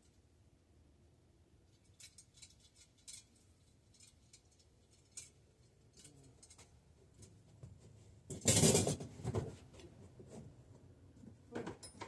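Scattered light metallic clicks and clinks of tools and small bicycle parts being handled, with a louder clatter lasting about a second about eight and a half seconds in.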